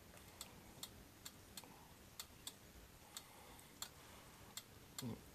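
Faint, sharp, irregular pops of hot oil and meat juices spattering on an electric hot plate as bulgogi fries, roughly two a second, with a short low knock about five seconds in.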